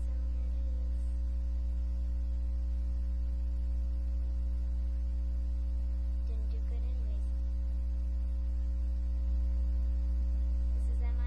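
Steady low electrical mains hum from the recording, with a few fixed higher overtones above it. A girl's voice comes in faintly and briefly about six and a half seconds in.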